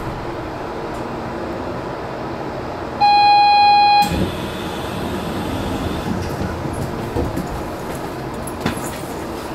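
Low steady equipment and running noise of a standing Port Liner automated guideway train. About three seconds in, a single loud electronic warning tone sounds for about a second and cuts off, after which the low rumble strengthens slightly.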